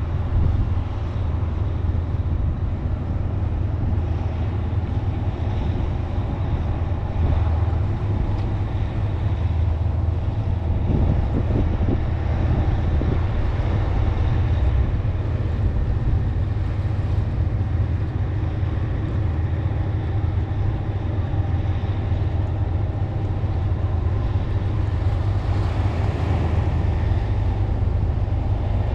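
A steady low engine rumble with a droning hum, running on without pause.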